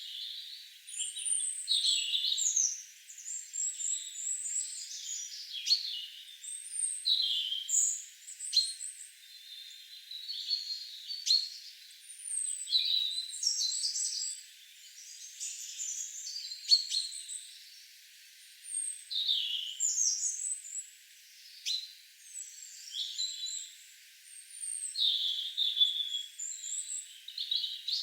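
Several songbirds singing at once: a continual run of short overlapping chirps, whistles and trills.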